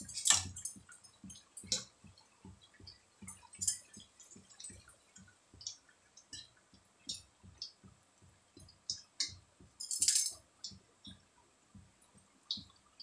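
Kakara pitha deep-frying in hot oil in a kadai: the oil crackles with many small pops while a wire-mesh skimmer turns the cakes, clinking and scraping against the pan a few times, loudest about ten seconds in.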